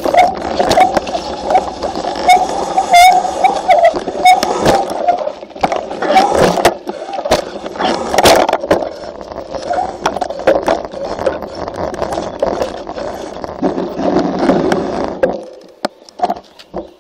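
Mountain bike rolling over stone paving, picked up by a bike-mounted camera: a continuous rattle of tyres and frame with frequent sharp knocks over the slab joints, which dies away near the end as the bike comes to a stop.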